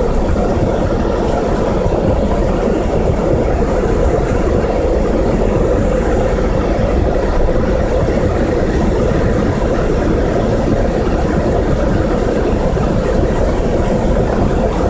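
Steady low rumble of a flash flood's muddy debris flow, water and rocks rushing across the road past the vehicle, heard from inside the cab.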